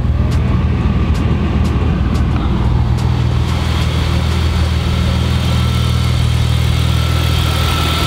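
BMW E36 M3's inline-six engine idling steadily, run after a radiator replacement to check the new radiator for leaks. Light clicks sound about every half second during the first few seconds.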